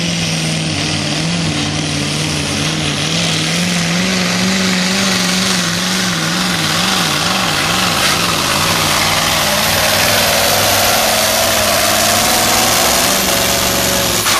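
Heavily modified diesel engine of a pulling truck at full power, dragging a weight-transfer sled. It runs loud and continuous; its pitch wavers rapidly up and down for a few seconds in the middle of the run, and a faint high whine runs alongside.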